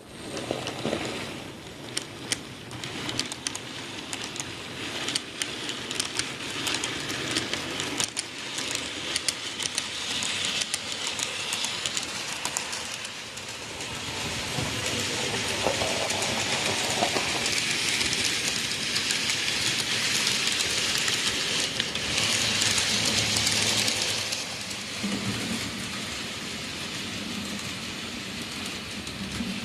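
Model train running on a layout: a Micro Ace C11 171 steam locomotive model hauling container wagons. Its wheels hiss along the rails and click over the track joints, and the sound swells for a while in the middle.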